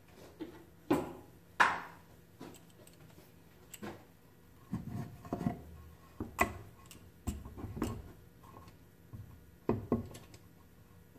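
Handling a long metal bar clamp against a pair of doweled wooden boards on a wooden workbench: a string of sharp knocks and metallic clinks, the loudest two in the first two seconds.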